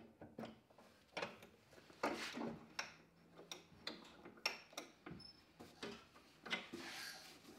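Irregular light clicks, knocks and short scrapes from the tailstock and blank of a Record Power wood lathe being handled while the lathe is stopped, as the spalted beech blank is seated between chuck and tailstock. A longer scraping rub comes near the end.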